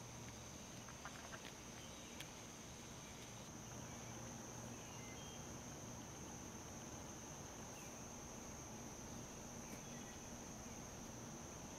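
Faint, steady high-pitched insect chorus, like crickets trilling, with a few short faint chirps around the middle and near the end.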